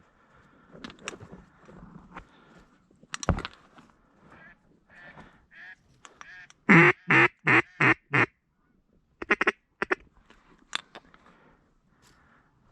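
A mallard duck call blown in a quick series of about six loud hen quacks, followed by a few shorter, softer notes, as a hunter calls to circling mallards. A single sharp knock comes a few seconds before the quacks.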